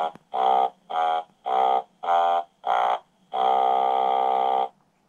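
Sound book's electronic button speaker playing a short buzzy horn fanfare: six short notes, then one long held note.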